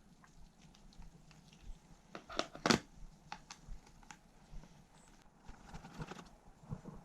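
Scattered small clicks and taps of laptop parts and tools being handled, with a louder cluster of knocks a little before the middle, over a faint steady low hum.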